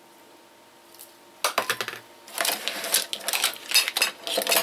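Metal teaspoon clicking and scraping against a plastic mixing bowl while salt is stirred into finely grated carrot. A quick, uneven run of clicks starts about a second and a half in.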